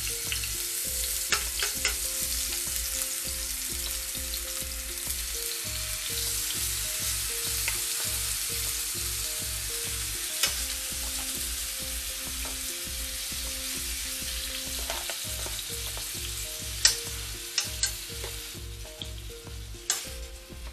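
Seasoned beef strips sizzling steadily in hot coconut oil in a frying pan as more pieces are laid in. A few sharp clicks of tongs against the pan, mostly near the end.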